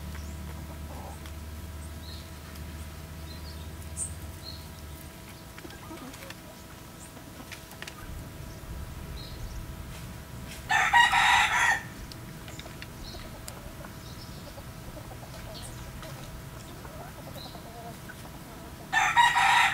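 A rooster crowing twice, each crow lasting about a second: once about halfway through and again near the end.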